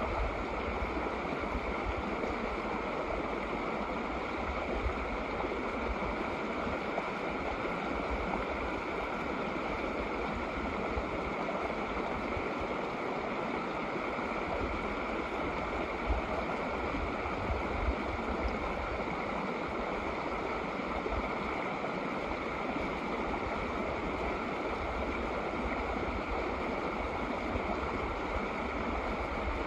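Shallow snow-melt mountain creek babbling steadily over rocks.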